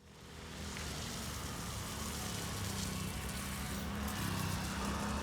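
Engine running steadily under outdoor background noise, fading in over the first second.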